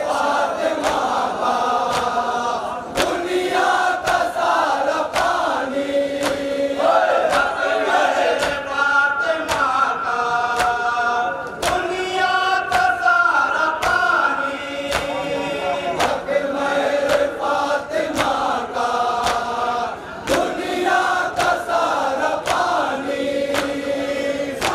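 Men chanting a nauha, a Shia Muharram lament, led by a reciter on a microphone with many voices joining, over a steady beat of sharp slaps from hands striking chests in matam.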